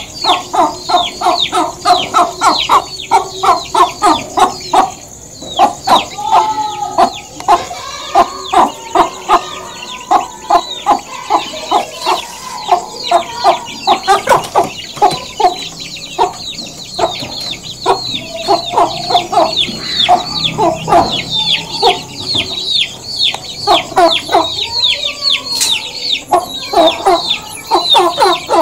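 Domestic hen clucking in rapid runs of short 'gog gog gog' clucks, several a second, with a few longer drawn-out calls between. This is the hen's clucking as she settles to roost for the night.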